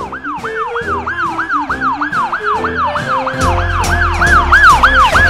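Ambulance siren in a fast yelp, its pitch sweeping up and down about four times a second, over children's background music with a steady bass beat.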